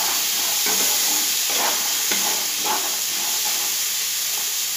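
Soaked black chickpeas sizzling in a little oil in a nonstick frying pan, with a steady hiss, while a wooden spatula stirs and scrapes through them in several strokes during the first three seconds.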